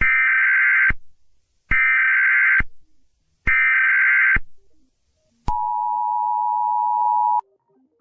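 Emergency Alert System tones: three short screeching bursts of the digital header data, each just under a second, then the two-tone attention signal held for about two seconds.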